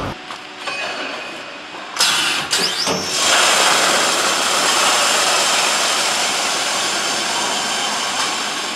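Bag filling machine pouring product through its hopper into a clamped bag: a steady rushing hiss that sets in about two seconds in, after a short loud burst.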